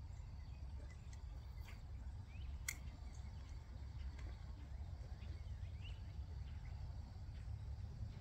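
Faint outdoor ambience: a low steady rumble with a thin, steady insect trill and a few short bird chirps. One sharp click comes a little under three seconds in.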